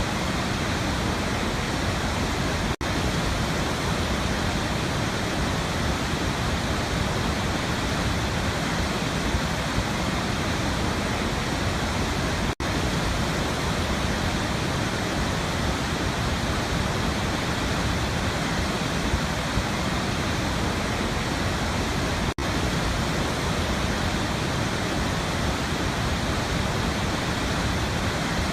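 Waterfall: a steady, dense rush of falling water. Three times, about ten seconds apart, the sound drops out for an instant.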